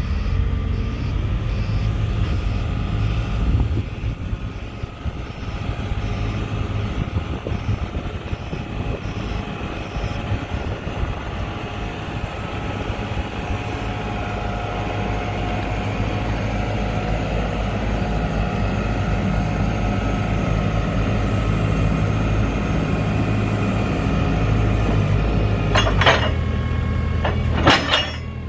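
JCB 535-125 telehandler's diesel engine running steadily while the hydraulics lower and retract its telescopic boom. A couple of sharp knocks come near the end.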